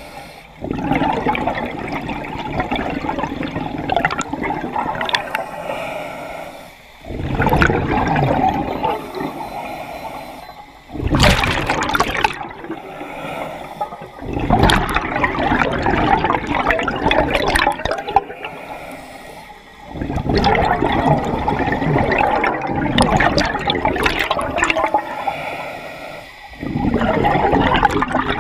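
Scuba diver breathing through a regulator underwater: a rush of exhaled bubbles lasting several seconds, repeating about every four to six seconds, with short quieter gaps between for each inhalation.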